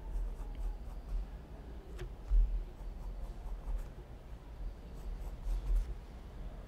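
Graphite pencil sketching on sketchbook paper, a faint scratchy rubbing of strokes, with a couple of dull low bumps on the table carried to the desk microphone.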